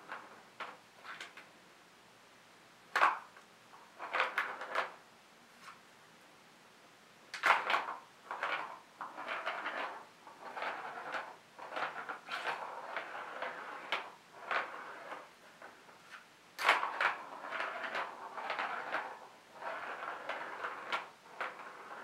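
A plastic ball rolling and rattling around a Catit Senses Circuit plastic track as cats bat at it with their paws, in irregular bursts. There are sharp clacks about 3, 7 and 17 seconds in.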